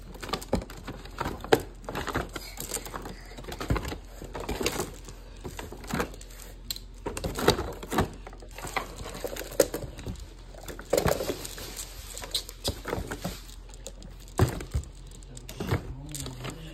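Irregular light taps, knocks and plastic crinkling from party favour bags and their contents being handled and packed.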